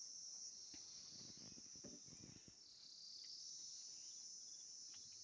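Faint, steady chorus of crickets, a continuous high-pitched trill, with a few soft knocks scattered through it.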